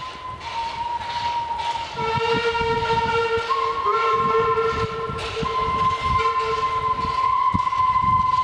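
Metre-gauge steam locomotive whistling long and steady as it approaches. A high whistle sounds throughout, and a deeper whistle joins it from about two seconds in until near the end. Beneath them come the regular exhaust beats of the engine working.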